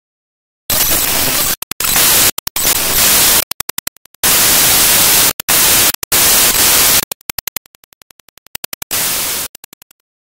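Loud hissing static that starts about a second in and keeps cutting in and out in rapid stutters, with a quieter stuttering stretch near the end, then stops abruptly.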